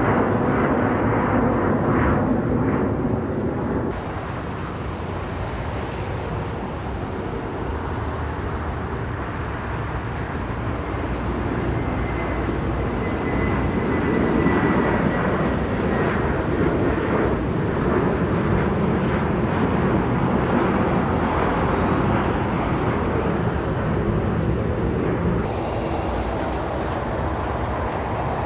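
Jet airliner passing close by: a loud, continuous engine rush with a faint high whine in the middle. The sound shifts abruptly about four seconds in.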